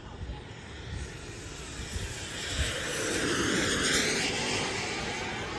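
Radio-controlled jet fighter model making a pass: its jet rush swells to its loudest about three to four seconds in, then fades as it moves away. Low wind rumble on the microphone underneath.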